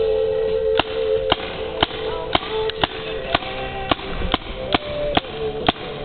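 Tippmann paintball gun firing shot after shot, about two sharp pops a second, around a dozen in all, with music playing underneath.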